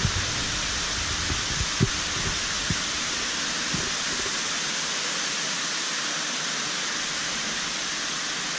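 A tall indoor waterfall, a sheet of water falling down a multi-storey wall into a pool, makes a steady, even rushing hiss. A few soft low knocks come in the first few seconds.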